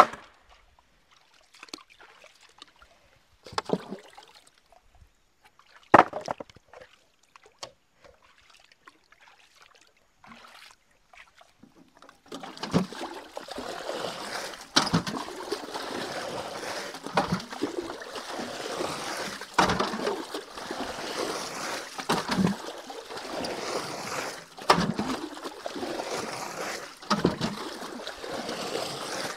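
A canoe being bailed out with a bucket. After a few scattered knocks, from about twelve seconds in there is steady sloshing and pouring, with a louder splash about every two and a half seconds as each bucketful is thrown over the side.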